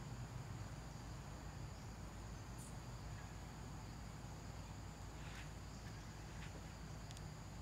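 Insects calling steadily in a high, continuous drone, over a low background rumble, with a few faint ticks.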